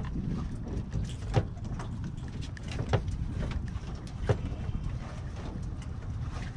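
Steady low rumble of wind on the microphone on an open pontoon boat, with a sharp knock about every second and a half, four times.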